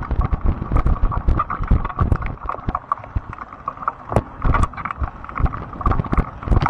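Fat-tire electric bike jolting over rough grass: a quick irregular run of knocks and rattles over a low rumble. The motor's steady whine drops away in the middle and returns near the end.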